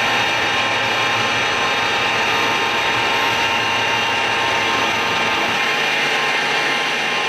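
CNC-converted Precision Matthews PM-727M mill drilling holes in metal angle: the spindle runs with a steady whine under a steady hiss from the coolant spray, with no breaks.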